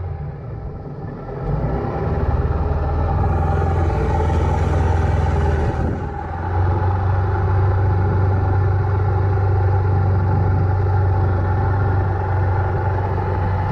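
Outboard motor of a small river boat running steadily under way, a constant low drone. It builds up about a second and a half in and dips briefly at about six seconds before settling again.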